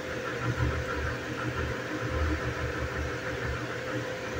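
Steady mechanical hum with a low, uneven rumble underneath.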